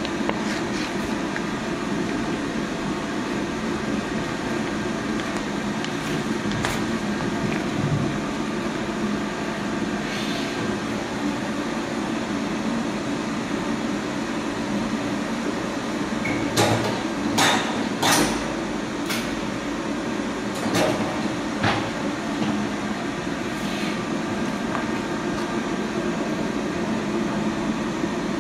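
High-frequency PVC welding machine humming steadily. Sharp clacks and knocks come in a cluster about sixteen to nineteen seconds in, with a couple more shortly after.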